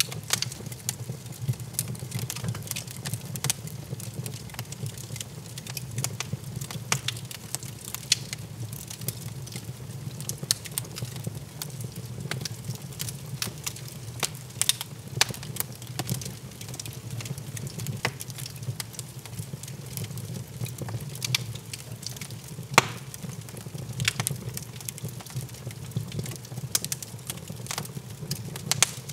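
Log fire in a fireplace crackling, with irregular pops and snaps over a steady low rumble; one sharper crack about three-quarters of the way through.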